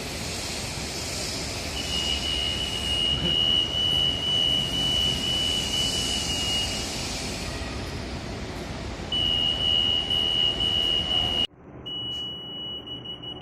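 Acousto-magnetic 58 kHz EAS security gate (AM4400) alarm sounding a steady high-pitched tone for about five seconds, then twice more for a couple of seconds each, over a steady background hiss and hum.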